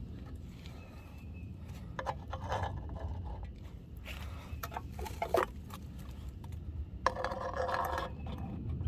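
BB gun shots and cans being hit: scattered clicks and knocks, a sharp crack about five seconds in and another about seven seconds in, the second followed by about a second of rattling clatter.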